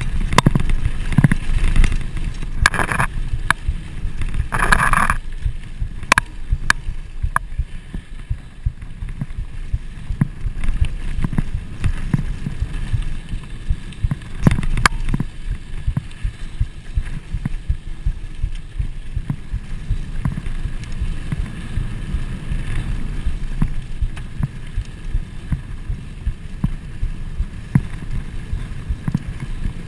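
Trek Fuel EX full-suspension mountain bike rolling fast down a dirt fire road: a constant low rumble of wind buffeting and tyres on the packed dirt, with the bike rattling in many small clicks and knocks. Two brief louder hissing bursts come about 3 and 5 seconds in.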